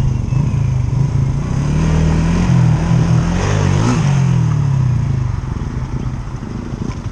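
A Yamaha scooter's engine runs at road speed with wind and road rush, heard from the rider's position. About three and a half seconds in, a passing vehicle's engine sweeps up and then down in pitch. Near the end the engine note and overall level drop as the scooter slows down.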